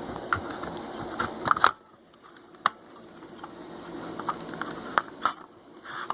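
Scattered plastic clicks and knocks as the circuit board of a 2000 Camaro Z28 body control module is pried loose from its plastic case by hand, loudest about a second and a half in, with a few more near the end.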